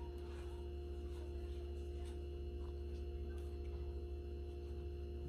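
Steady low electrical hum with a few held higher tones. Faint soft rubbing of hands being worked together with hand sanitizer.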